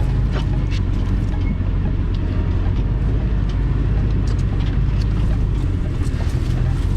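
GMC Sierra 2500HD pickup's engine running in a low, steady drone as the truck crawls a rough off-road trail, with scattered knocks and clicks over it.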